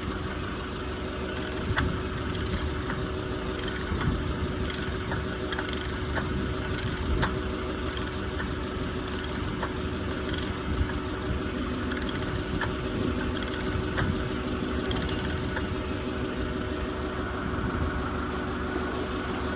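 Forklift engine idling steadily, with scattered light clicks and taps over it as the last jam nut is worked off the combine's final drive.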